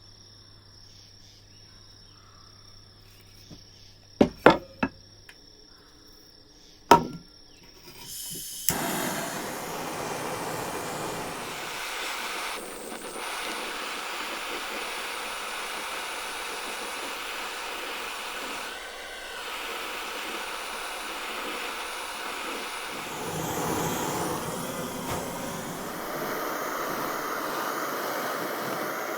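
A few sharp knocks, three in quick succession and then one more, followed by a steady hissing rush that starts suddenly about nine seconds in and keeps going.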